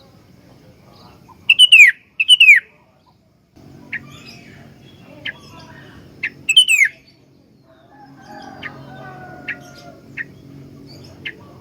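Sooty-headed bulbul (kutilang) singing: loud downward-sliding whistled notes, a pair about a second and a half in and another about six and a half seconds in, with short sharp chirps between.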